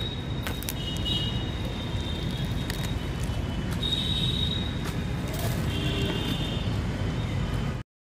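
Outdoor background noise: a steady low rumble with scattered small clicks and a few brief high-pitched tones. It cuts off abruptly near the end.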